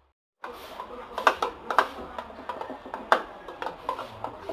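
A metal spoon stirring seasoning mix into water in a clear jug, clinking and ticking irregularly against its sides. The louder clinks come about a second in, near two seconds and about three seconds in, after a brief silence at the start.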